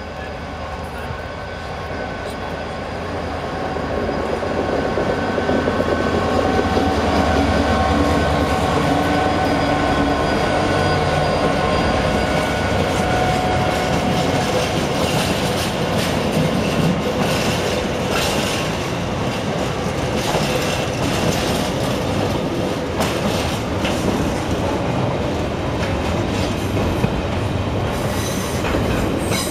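A Class 66 diesel locomotive's two-stroke V12 engine grows louder over the first few seconds as it approaches and passes. Its loaded container wagons follow, rolling by with rhythmic wheel clatter over rail joints and pointwork and some wheel squeal.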